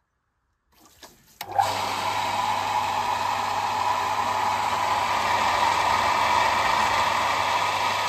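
Metabo pumping station's electric surface pump switching on about a second and a half in and then running steadily, with a low hum under a whirring noise.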